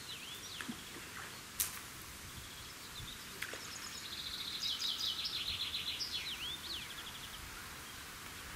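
Songbirds singing in fast trills and swooping whistles, busiest around the middle. A single sharp click comes about a second and a half in.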